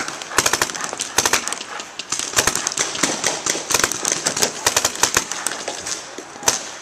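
Paintball markers firing in rapid strings of shots, many a second, with short lulls between the strings.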